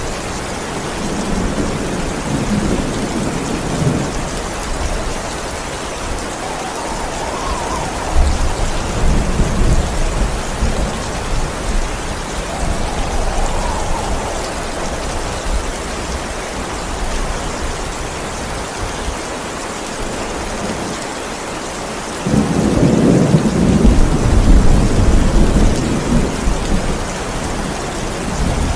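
Steady heavy rain falling, with thunder rumbling low several times. A louder roll of thunder starts suddenly about three-quarters of the way through and lasts a few seconds.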